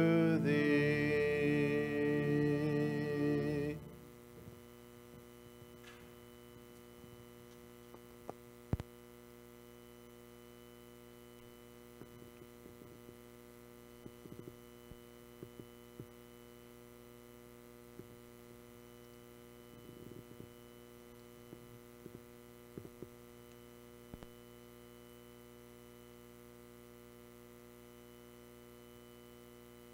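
A hymn sung with accompaniment ends on a held final chord about four seconds in. After that there is a steady electrical mains hum with scattered faint clicks and knocks, one sharper knock about nine seconds in.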